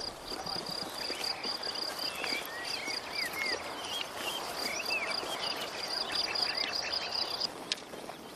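Crickets chirping in a steady, evenly pulsed high run, with short bird calls mixed in; the chirping stops near the end.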